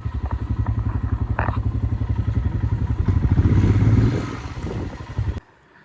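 Royal Enfield Himalayan's single-cylinder engine running under load off-road, a fast, even pulse of firing strokes that grows louder about three to four seconds in, then eases and cuts off abruptly.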